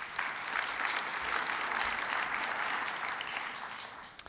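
Large audience applauding, dying away near the end.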